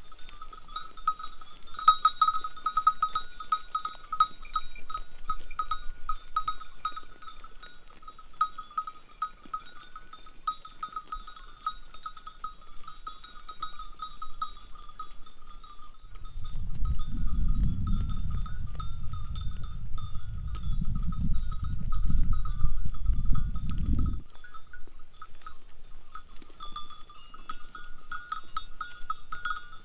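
Many sheep and goat bells jingling and clanking continuously as a herd grazes. For about eight seconds around the middle, a loud low rumble sits under the bells.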